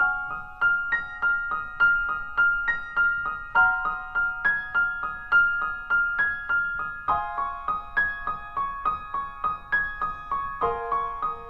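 Piano music: a quick, repeating melody of evenly spaced struck notes, about three a second, starting abruptly.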